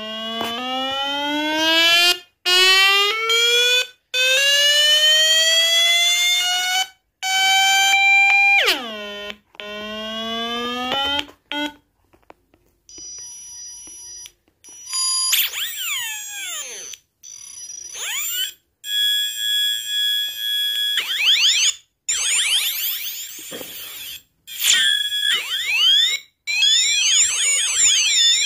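A small bare speaker cone on a little circuit board plays really loud electronic sound effects: long slowly rising siren tones with many overtones in the first half, then falling zaps, steady beeps and fast warbling chirps, each cut off by brief silent gaps.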